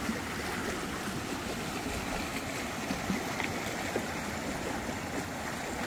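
Tuttle Creek, a mountain creek running high after rain, rushing over rocks in a steady wash of water noise.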